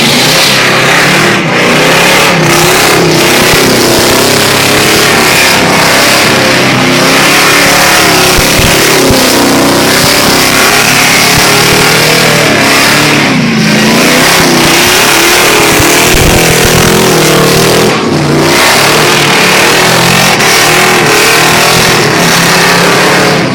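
Ford Lightning pickup's V8 held at high revs during a burnout, its pitch wavering up and down with the rear tyres spinning. About halfway through, the revs briefly dip, then climb back.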